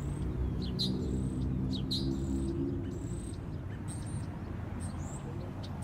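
Small birds chirping in short repeated calls over a low, steady engine hum that fades about three seconds in.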